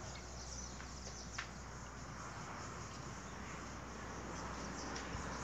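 Quiet outdoor ambience: faint insects chirping with a few scattered bird or insect calls, over a steady low hum.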